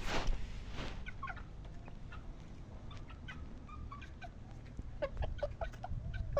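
A flock of chickens clucking: many short clucks from several birds, with a couple of brief rustling noises in the first second.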